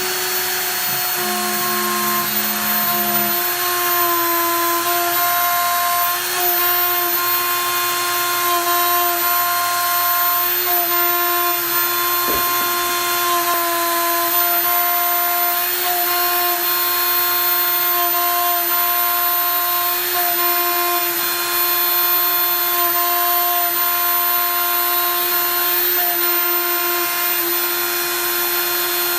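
Kress 800 router spindle on a Stepcraft-2/840 desktop CNC running at high speed with a steady whine, an up-cut bit milling HDPE plastic. The pitch dips briefly now and then.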